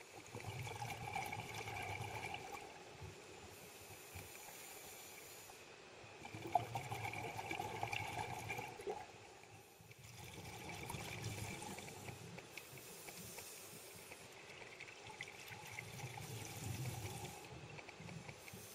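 Scuba diver breathing through a regulator underwater: a hiss on each inhalation, then rushing, bubbling exhalations. It comes in a slow cycle of about one breath every four to five seconds, with four exhalations in all.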